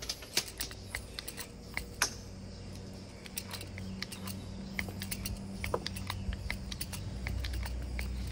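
Irregular sharp clicks from a hand crimping tool being pumped, pressing a stainless steel cable tensioner onto the wire rope. A faint low hum runs underneath.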